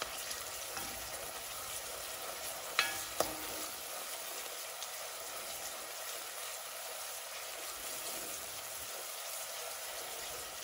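Onions and tomato purée sizzling in hot oil in a pot, stirred with a wooden spoon: the purée is frying down as the base for jollof rice. Two sharp taps come close together a little under three seconds in.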